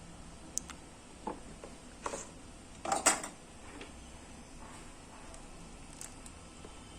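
A few light clicks and taps of small repair tools being handled and set down, spread apart, the loudest about three seconds in.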